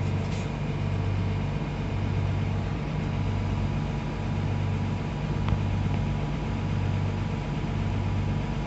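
Heavy diesel engine running steadily at low revs: a deep, even hum that swells and dips about once a second.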